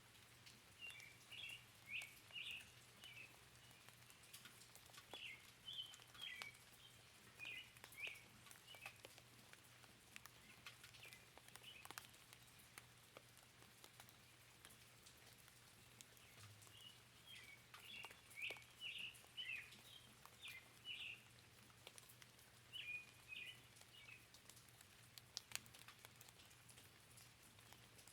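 Faint bird chirping, short high calls coming in bunches with pauses between, over light scattered raindrop ticks and a soft hiss of rain.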